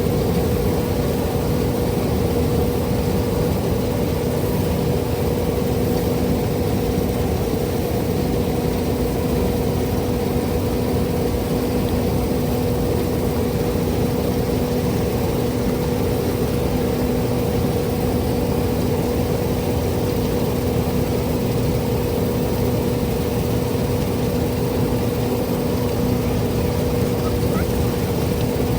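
CLAAS Lexion combine harvester running steadily while harvesting wheat: continuous engine and machinery noise with a constant low hum.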